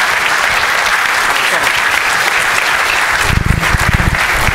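Audience clapping, a steady dense applause. Low thuds and rumbling join in about three seconds in.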